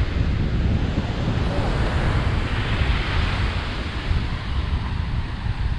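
Ocean surf washing on a beach, swelling about three seconds in, with wind rumbling on the microphone.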